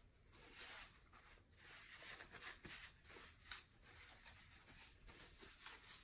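Near silence: room tone with a few faint, soft rustles.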